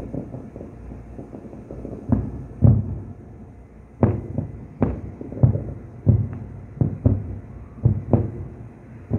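Distant aerial firework shells bursting: about ten deep booms at irregular intervals, each with a short echoing tail.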